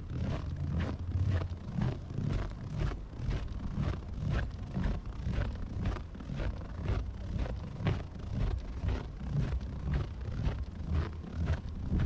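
Footsteps crunching in fresh snow at a steady walking pace, about two steps a second, over a low, steady rumble.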